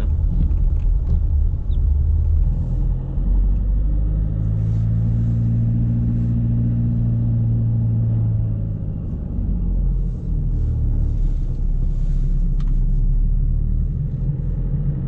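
Car driving, heard from inside the cabin: a steady low engine and road rumble. The engine note swells about four seconds in and fades again a few seconds later.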